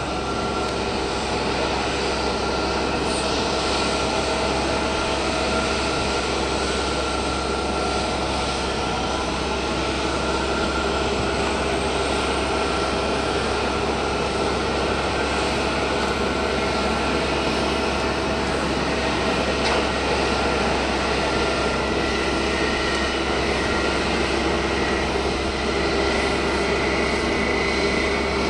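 Boeing 777-200 airliner's jet engine noise during pushback: a steady rushing whine with several held tones, and a faint high whine that climbs slowly through the middle.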